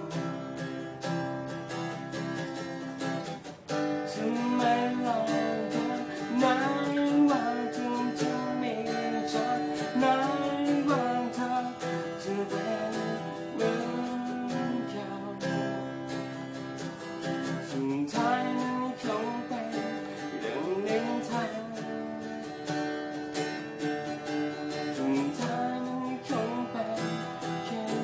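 Acoustic guitar strummed steadily while a man sings over it in phrases, with short stretches of guitar alone between them.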